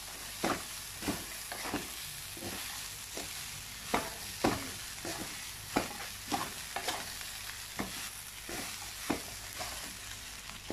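Rice and carrots being stir-fried in a pan: a wooden spatula scrapes and knocks against the pan in irregular strokes, about one or two a second, over a steady sizzle.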